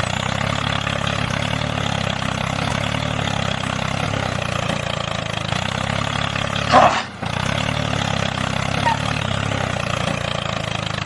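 A DIY mini tractor's small motor running steadily. About seven seconds in there is a brief louder sound, then the hum cuts out for a moment and resumes.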